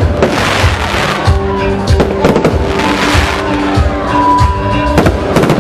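Fireworks bursting overhead about five times, each with a sharp bang and crackle, over loud music with held notes and a steady beat.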